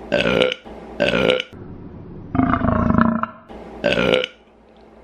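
A woman burping loudly several times: three short burps about a second apart and one longer, deeper burp in the middle.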